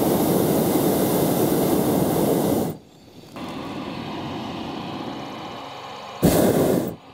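Hot air balloon's propane burner firing with a loud steady roar that cuts off after nearly three seconds, then one short blast of under a second near the end.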